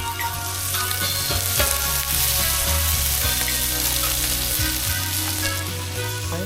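Bacon frying in a pan, a steady sizzle and crackle of fat.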